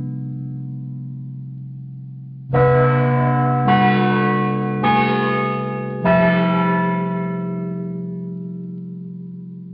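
Tuned bell chime: four bell strikes at different pitches, about a second apart, each ringing on and slowly fading, over the fading ring of an earlier strike.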